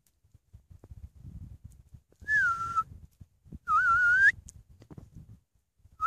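Two whistled calls, each about half a second long and wavering in pitch, with a third starting right at the end: a recall signal calling border collie puppies back.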